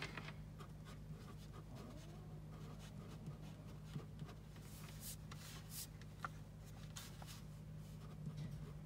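Pen writing on the paper pages of a planner: faint, scratchy strokes of the pen tip with a few sharper little taps, over a steady low hum.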